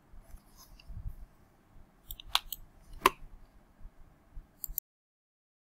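Computer mouse clicks at a desk: two sharp clicks about two and three seconds in, then two lighter ones, after which the recording cuts off abruptly.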